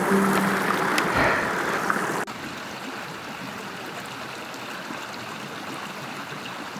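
Creek water flowing over rocks, a steady rush. It drops abruptly to a quieter level about two seconds in.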